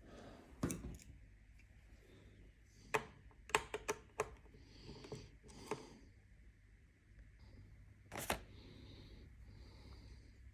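Scattered small clicks and taps of screws and a screwdriver on the casing of an Akai MPC Live 2, with a few louder knocks among quieter handling noise.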